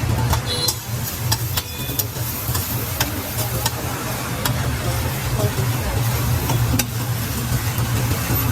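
Food frying on a hot street-stall griddle, with a metal spatula repeatedly clicking and scraping against the pan over a steady low hum.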